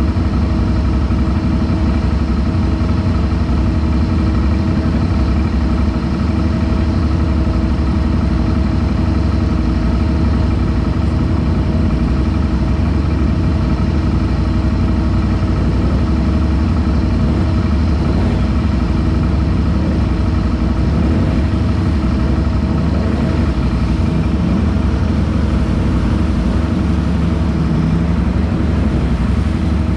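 ATV engine idling steadily, its pitch holding level throughout.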